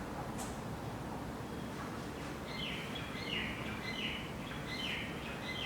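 A bird calling, a run of about five short chirps roughly one every 0.7 seconds starting about halfway through, over a steady low background hum.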